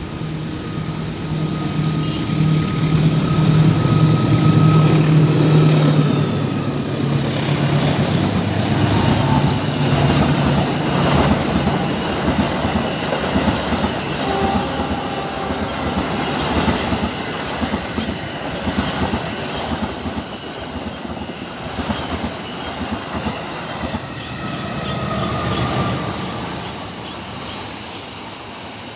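A CC206 diesel-electric locomotive passes close with its engine running as a loud low hum for the first several seconds. Then its passenger coaches run by, wheels clattering steadily over the rails, with brief high wheel squeals twice on the curve. The clatter fades slowly toward the end.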